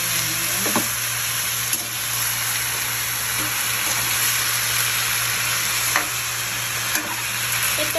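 Chopped roast pork sizzling as it is sautéed with garlic and onion in a metal wok, stirred and scraped with a metal spatula. There are a few sharp knocks of the spatula against the pan, near the start and again about six and seven seconds in.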